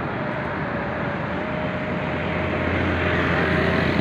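Steady rushing roar of Indus floodwater pouring through the Sukkur Barrage, with a deep rumble under it and a faint steady whine above.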